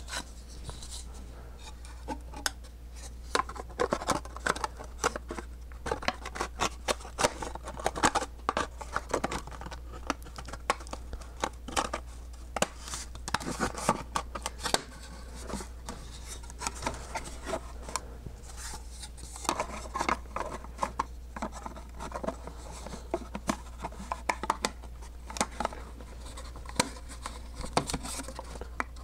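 Thin laser-cut wooden panels being handled and fitted together by hand, tabs pushed into slots: irregular light clicks, knocks and scrapes of wood, over a steady low hum.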